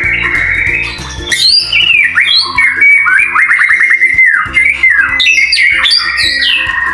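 Male white-rumped shama singing loudly in varied whistled phrases and pitch glides, with a fast rattling trill about halfway through, over background music with guitar.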